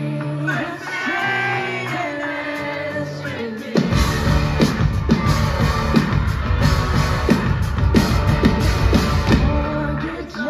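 Live rock band playing: electric guitars and singing. About four seconds in, the drums and the rest of the band come in and the music gets louder.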